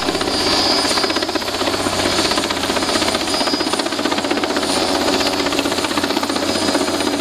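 Sikorsky S-58 crane helicopter running steadily: a loud, even drone with a rapid, regular rotor beat.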